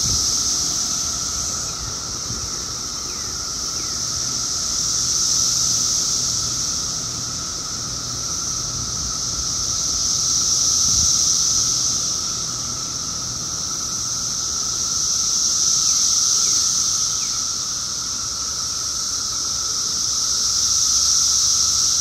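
Chorus of periodical cicadas in the trees: a loud, high, shrill chorus that swells and fades about every five seconds, over a steadier lower drone from a second kind of call.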